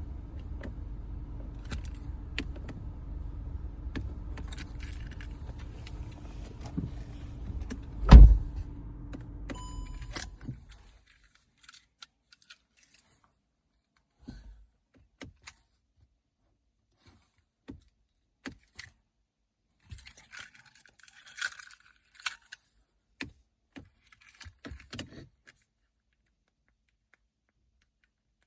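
VW Golf cabin: a steady low running hum stops after about ten seconds, with one loud thud a couple of seconds before it ends and a short electronic chime. Then come scattered small clicks and keys jangling, with no engine cranking: the push-button start is not starting the car.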